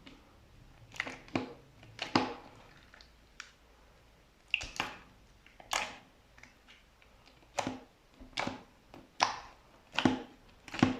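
Slime mixed with small white pearl beads being pressed and squeezed, giving about a dozen short, crackling squishes at irregular intervals, roughly one a second.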